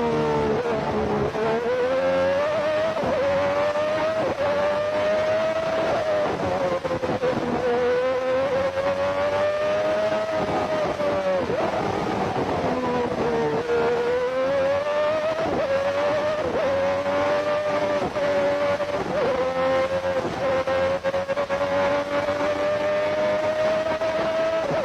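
Lotus 102's Lamborghini 3.5-litre V12 racing engine at full race pace, heard from on board. Its pitch climbs as it pulls through the gears, breaks briefly at each quick gear change, and falls away under braking and downshifts, three times in all.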